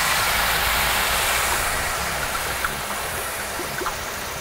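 Red wine poured onto a very hot steel disco griddle, hissing and sizzling as it boils off in steam among browned osso buco and vegetables: deglazing the pan. The hiss is loudest at first and slowly fades, with a few small crackles.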